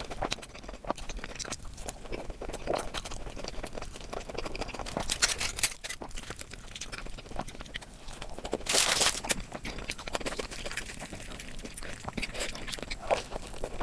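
Close-miked eating: chewing and crunching with small wet clicks, and two louder crunches about five and a half and nine seconds in.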